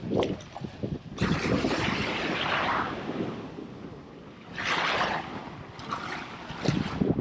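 Wind buffeting the microphone over small waves washing up on the sand, with one wash swelling about a second in and another near the middle.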